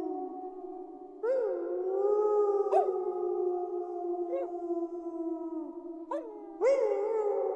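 Several wolves howling in chorus: long, held howls overlap one another. New howls keep breaking in with a quick upward swoop, loudest about a second in and again near the end.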